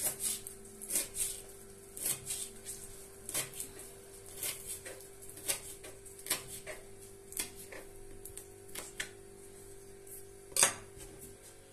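Kitchen knife finely chopping fresh parsley on a plastic cutting board: irregular light taps of the blade on the board, about one or two a second, with one sharper knock near the end.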